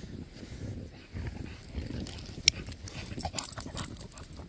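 Footsteps crunching through deep fresh snow, mixed with a bulldog's heavy breathing, and a sharp click about halfway through.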